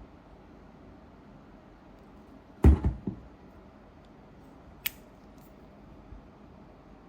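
Handling noises in a small room: a heavy thump about two and a half seconds in, a softer knock just after it, then a sharp click about five seconds in.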